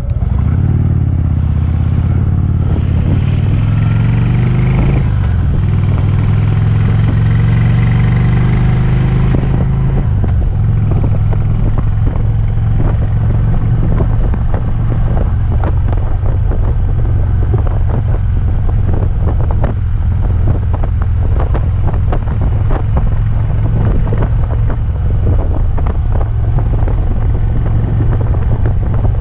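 Harley-Davidson Twin Cam 103 V-twin engine running under load, its pitch rising in the first few seconds, then running steadily with a quick, irregular ticking over it from about ten seconds in. The tick shows only under load, not at idle, and persists with a new compensator, new tappets and pushrods, and rocker arms inspected with no play; the owner cannot identify its cause.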